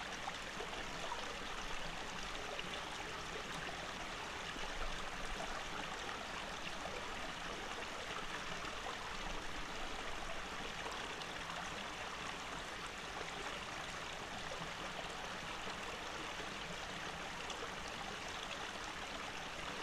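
Small rocky forest stream running shallow over stones, a steady, unbroken wash of water.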